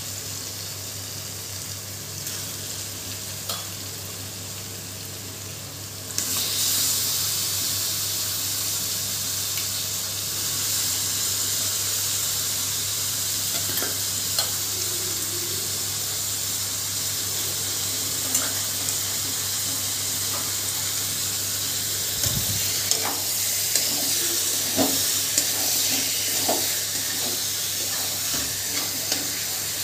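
Raw chicken pieces frying in hot masala in a kadai: a steady sizzle that turns sharply louder about six seconds in and then holds. In the last several seconds a metal spatula clicks and scrapes against the pan as the chicken is stirred.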